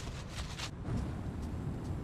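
Steady low rumble of wind, with a few short crunches in snow in the first second.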